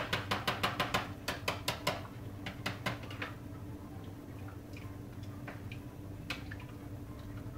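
Spoon knocking against the side of a stainless steel pot as sauce is stirred quickly, about six clicks a second. The clicks thin out about two seconds in and stop about three seconds in, leaving a few faint ticks over a low hum.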